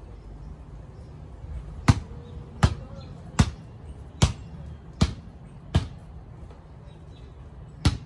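Basketball dribbled on a concrete driveway: seven sharp bounces about three-quarters of a second apart, starting about two seconds in, with a longer pause before the last one.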